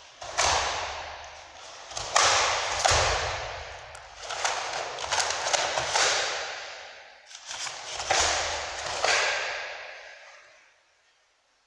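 Karate gi snapping sharply with fast punches and strikes during a kata, along with thuds of bare feet on the mats. The snaps come in quick clusters of two or three, each ringing on in a large hall's echo.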